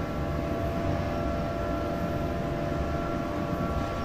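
Steady running noise heard inside the cab of a Class 20E electric locomotive under way with a heavy loaded train: a dense low rumble with several constant whining tones held over it.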